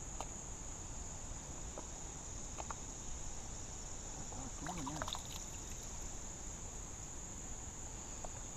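Steady high-pitched chorus of insects, a single continuous whine, with a few faint clicks and a brief faint voice about halfway through.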